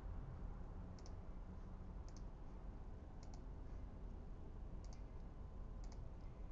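Faint computer mouse double-clicks, five pairs about a second apart, over a low steady background hum.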